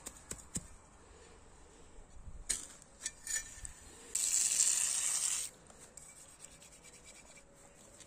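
Small homemade steel garden trowel worked in grassy turf: a few light clicks and knocks, then a rough rubbing hiss for about a second and a half in the middle.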